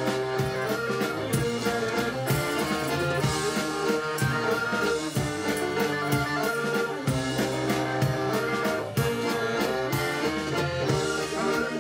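Live rock band playing, with accordion, electric guitar and drum kit over a steady beat.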